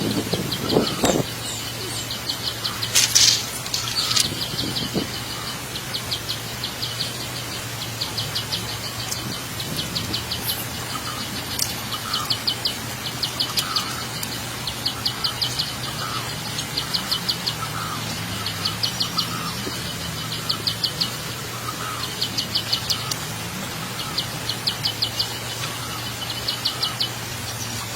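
High-pitched chirping in rapid trills, repeated every second or two, over a steady low hum.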